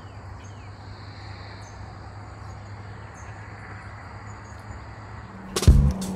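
Steady chorus of insects, an even high-pitched buzz over a faint low hum. Music with a beat cuts in suddenly near the end.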